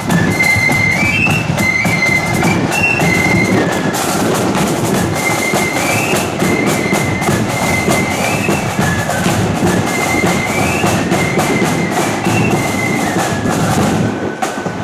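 Marching flute band playing a tune: high flutes carry the melody over snare drums and a bass drum.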